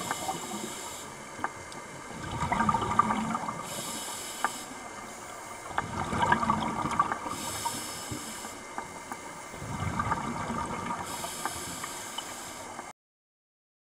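Scuba diver breathing through a regulator underwater: a hiss on each inhale alternates with bubbling exhaled air, about one breath every four seconds, three breaths in all. The sound cuts out near the end.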